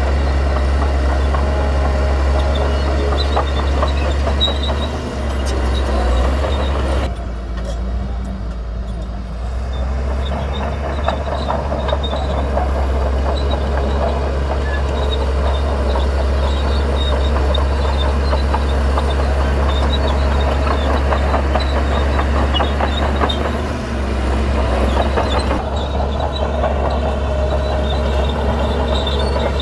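Heavy diesel earthmoving machinery engines running steadily under load, a deep constant drone with a mechanical clatter above it. The higher clatter drops away for a few seconds about seven seconds in, then returns.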